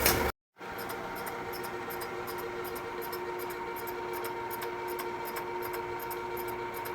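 Milling machine cutting a cylinder head face: a steady machine hum with a light tick about three times a second from the cutter's passes. It starts about half a second in after a brief gap.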